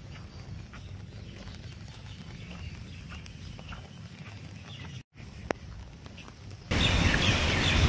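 Light rain: scattered drops tapping on an umbrella over a faint hiss. A loud, even rushing noise cuts in near the end.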